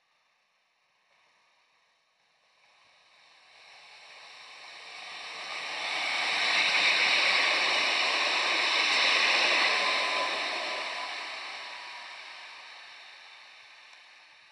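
Low-floor articulated tram passing close by on ballasted track. Its rolling noise swells as it approaches, is loudest as it goes past around the middle, then fades as it runs away down the line.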